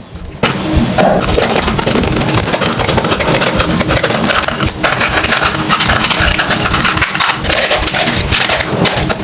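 Electric wood planer switched on about half a second in, its motor starting up and running loud and steady, with a rough, scraping rattle throughout.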